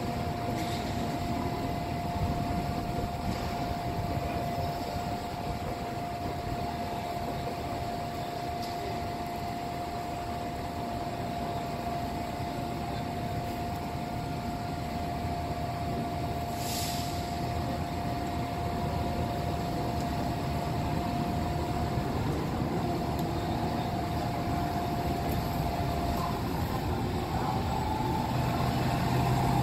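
City street ambience: a steady rumble of traffic with a steady high whine running through most of it. There is a brief hiss about halfway, and the sound grows a little louder near the end.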